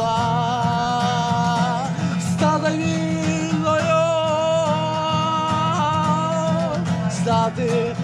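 Ukrainian-language song with a voice holding long, wavering notes over a steady musical accompaniment.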